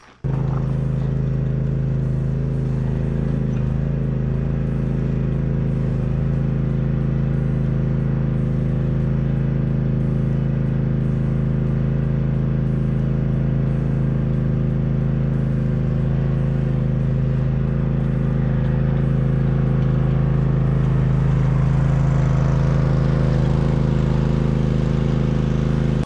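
Kawasaki V-twin engine of a zero-turn mower running steadily as the mower drives across the lawn, getting a little louder about three quarters of the way through.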